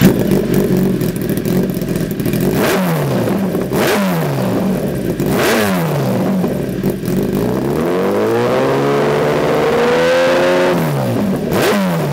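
2013 Kawasaki ZX1000's inline-four engine through a Lextek CP1 stubby slip-on silencer, idling and being blipped. Three quick revs each fall back to idle, then a longer rev climbs for about three seconds before dropping away, and there is one more quick blip near the end.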